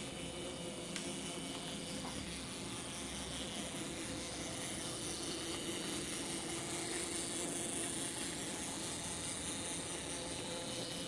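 H0-scale model freight train, a steam locomotive pulling box wagons, rolling past: a steady whir of the small electric motor and wheels running on the rails, growing a little louder as the wagons go by.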